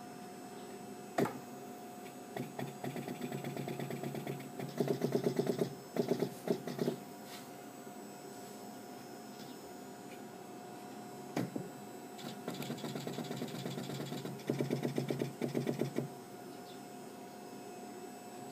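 Seeburg Model K player piano note stack's pneumatics firing under vacuum in rapid, even repetition, a fast clatter of valves and striker pneumatics. It comes in two long runs, the first starting about a second in and the second about halfway through, over a steady hum.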